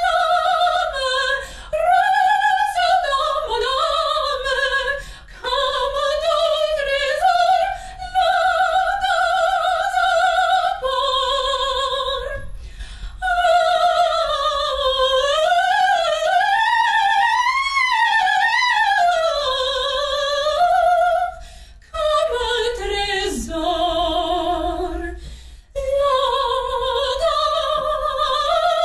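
Operatic singing: a single high voice holds long notes with wide vibrato and sweeps up and down through phrases, breaking off briefly between phrases a few times.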